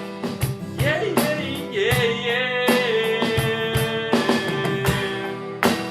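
Rock band music between sung lines: a drum kit keeps a steady beat under guitars, and a long, wavering melodic note is held from about a second in until about four seconds in.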